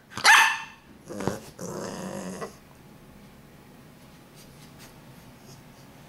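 Bulldog puppy giving one short, high-pitched bark just after the start, then a brief rough growl about two seconds in; after that only faint small ticks of the puppy mouthing a shoe.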